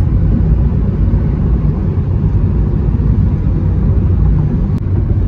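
Car driving at a steady speed: a continuous low rumble of road and engine noise.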